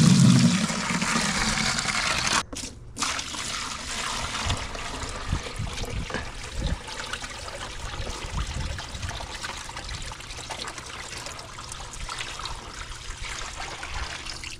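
Water running steadily into a wet saw's water tank as it is filled for cutting, with a short break about two and a half seconds in.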